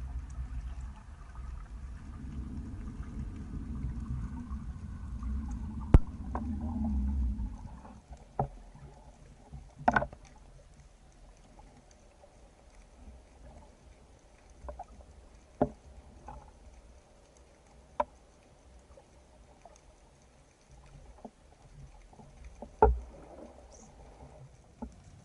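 Sound recorded underwater on a spearfishing dive: a low rush of moving water for the first several seconds, with one sharp click, then quieter water broken by a few scattered sharp clicks and knocks.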